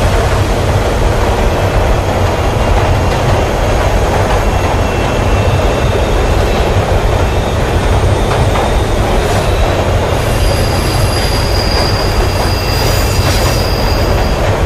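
Subway train running along the track, a steady rumble, with a thin high wheel squeal coming in about ten seconds in and dying away near the end.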